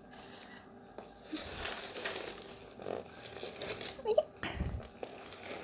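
Dry starch powder being squeezed and rubbed by hand, giving a squeaky, crunchy rustle. A short vocal sound from the toddler about four seconds in and a soft thud just after it.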